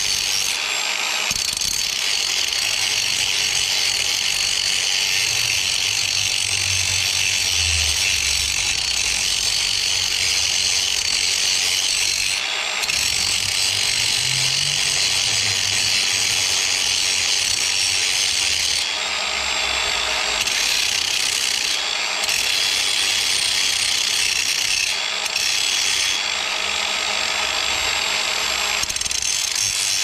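Electric angle grinder grinding rusty, cracked steel, cleaning the crack back to bare metal before welding. It runs continuously, with a high grinding sound whose tone shifts briefly several times as the disc's bite on the metal changes.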